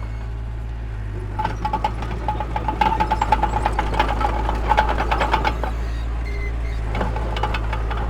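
Heavy earthmoving machinery running: a diesel engine's steady low rumble, with metallic clanking, rattling and an on-off squeal for a few seconds in the middle.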